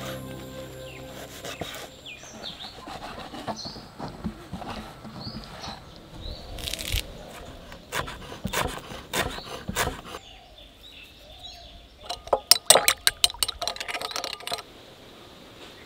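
Kitchen knife cutting through bread and chopping herbs on a wooden board, a series of irregular knocks, with birds chirping. Near the end comes a quick run of sharper clicks, a second or two long.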